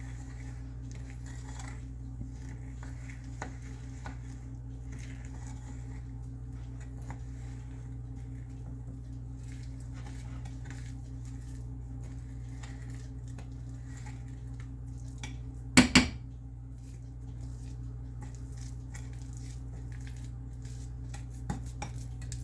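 Sugar and light corn syrup being stirred in a bowl: soft, gritty scraping and light taps, with two sharp knocks against the dish close together about two-thirds of the way through. A steady low hum runs underneath.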